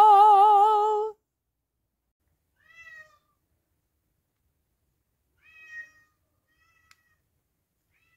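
A held sung note with a slow vibrato ends about a second in. Then a domestic cat gives a few faint, short, high-pitched meows, a few seconds apart.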